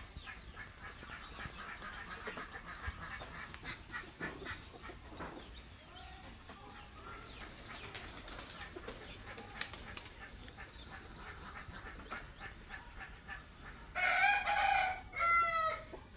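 Domestic chickens clucking faintly amid rustling and clicks, then two loud calls from a chicken near the end, one right after the other.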